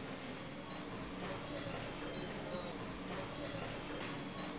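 Control-panel touchscreen on a band sawmill giving short, high electronic beeps as keys are tapped, about six of them spaced a second or so apart, over a steady low hum.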